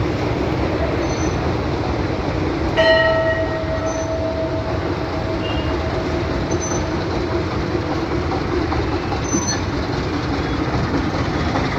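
A metal temple bell struck once about three seconds in, its ringing tone fading away over several seconds, over a steady rushing background noise.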